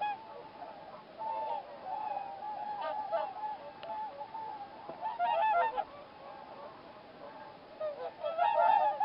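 A flock of whooper swans calling: many overlapping calls, thickest about five seconds in and again near the end.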